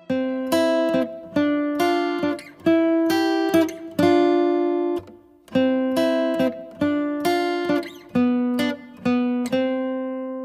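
Outro music: an acoustic guitar strumming slow chords, each one ringing out, about two strums a second with a short break around the middle.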